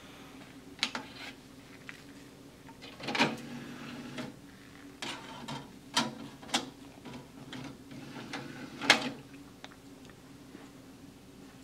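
Disc tray of a Zenith XBV713 DVD/VHS combo player being loaded: a series of mechanical clicks and clunks as a disc is set in the tray and the tray shuts, the loudest clunk about nine seconds in, over a steady low hum.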